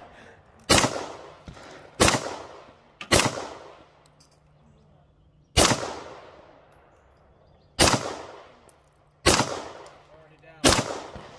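Handgun fired seven single shots at an uneven pace, roughly one to two and a half seconds apart. Each shot is a sharp crack with a short echo fading after it.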